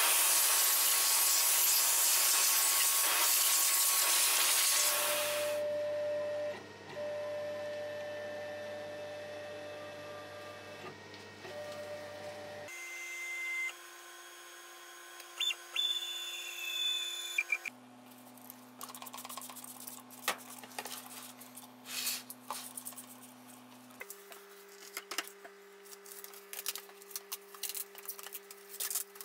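Loud rushing air from a hose clearing aluminium chips off a milling-machine table, stopping after about five seconds. Then quieter workshop hum, and near the end, crinkling and rustling of plastic stretch film being wrapped around an aluminium linear slide.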